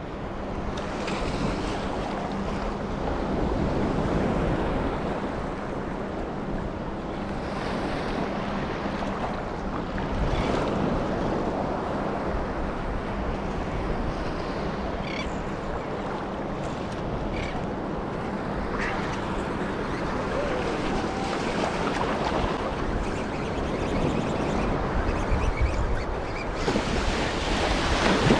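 Choppy surf waves washing and breaking, with wind buffeting the microphone.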